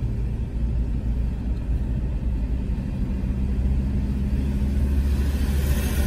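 Steady low rumble of a car driving along a city road, engine and tyre noise, with a hiss that grows louder near the end.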